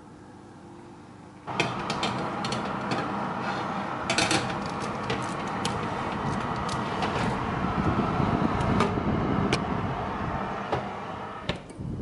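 Oven door opened onto the running fan of a preheating fan oven: a steady whir with scattered clicks and scrapes as a baking tray slides onto the rack. Near the end the door shuts with a low thud and the whir drops back to a muffled hum.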